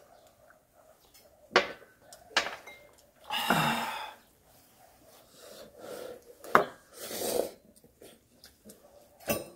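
Sounds of eating and drinking at a table: a few sharp clinks of glasses and chopsticks against dishes, and a breathy voiced 'ahh' after a shot of soju about three and a half seconds in. Near the end come softer sniffs and noodle slurping.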